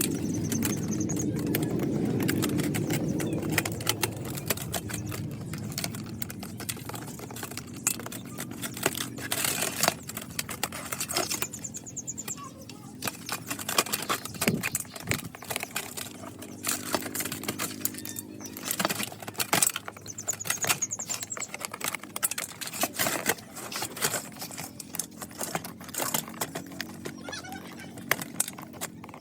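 Irregular plastic clicks, taps and rattles of computer keyboard parts, such as keycaps, being handled during disassembly and cleaning.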